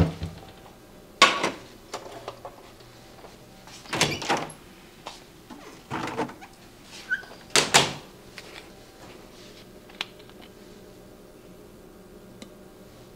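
Kitchen handling sounds: a frying pan set down on an electric stovetop and a refrigerator door opened and closed, heard as several separate knocks and clunks a few seconds apart, the loudest near eight seconds in.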